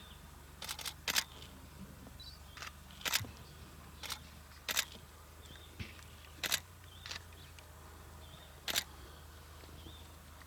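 Camera shutters clicking irregularly, about ten shots, some in quick pairs, as lions are photographed.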